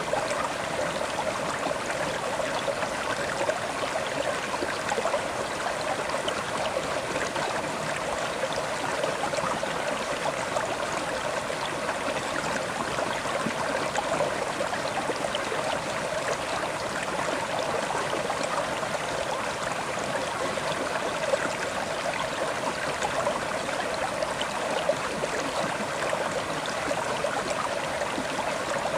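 River water flowing over stones in a steady rush, with small splashes and gurgles.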